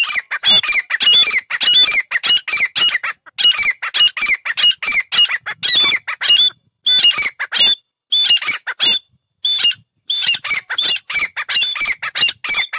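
Caged teetar decoy partridges (francolins) calling loudly and without pause: a rapid string of harsh, squawking notes, several a second, each falling in pitch, coming in runs with short breaks.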